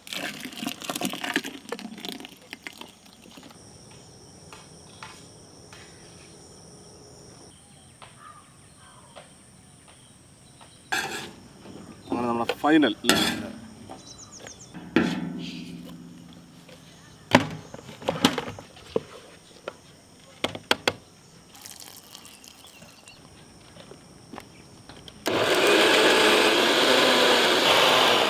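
Scattered knocks and clatter. Near the end an electric mixer-grinder blender starts suddenly and runs steadily at full speed, blending a jar of strawberry milkshake.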